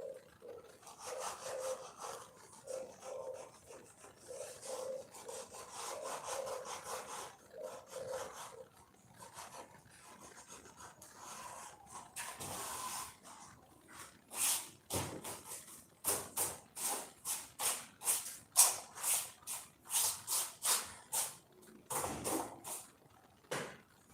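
Hand sanding strokes on a Jeep Cherokee dashboard: slower, even rubbing strokes at first, then from about two-thirds of the way in, quick sharp strokes about two to three a second.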